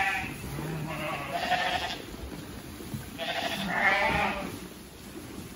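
Sheep bleating: two calls of about a second each, one about a second in and one about three seconds in, with the tail of another at the very start.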